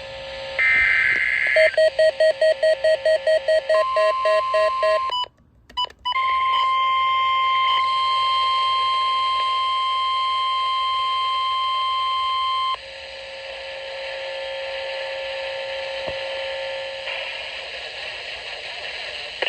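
NOAA Weather Radio Required Weekly Test alert. A short data burst is followed by rapid beeping, then a brief dropout, then the steady 1050 Hz warning alarm tone for about six seconds. After that come quieter radio hiss and a faint low tone.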